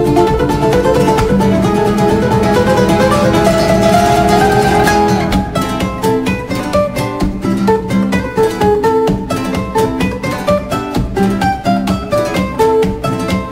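Background music played on plucked strings, likely guitar; about five and a half seconds in it changes to a run of separate, sharply plucked notes.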